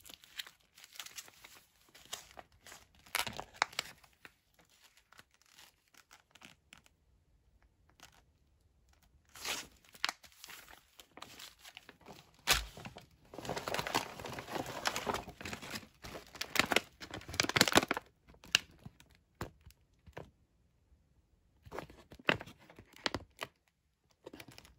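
Plastic and foil MRE ration pouches and the outer MRE bag crinkling and rustling as they are handled, in scattered bursts. The sound is busiest for several seconds around the middle.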